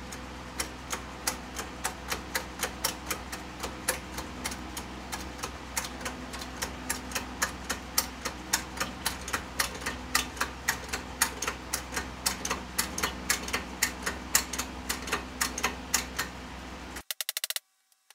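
Shop press working a bearing race onto a Porsche 356 transmission mainshaft: even, sharp clicks about three a second over a steady low hum. About a second before the end it gives way to a quicker run of clicks.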